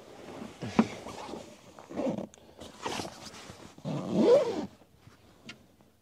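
Fabric and cushion rustling as a person shifts across a camper van's pop-top roof bed, in four or five irregular brushing swishes that die away near the end.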